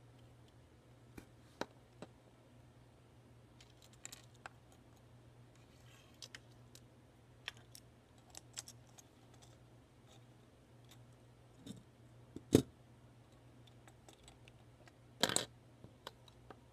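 Plastic Lego pieces and minifigures being handled, clicking and tapping against a wooden table edge: scattered small clicks, a sharper knock about twelve seconds in and a short clatter near the end.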